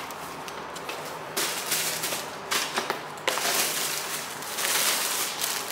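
Tissue paper and cardboard packaging rustling and crinkling as a tissue-wrapped parcel is handled and lifted out of a box, in two spells starting about a second and a half in and again past the three-second mark.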